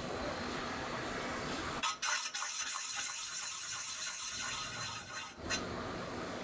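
Lathe tool taking the first rough cut across a cast iron pot lid: a steady, high scraping hiss that starts about two seconds in and stops sharply some three and a half seconds later, over a low factory background.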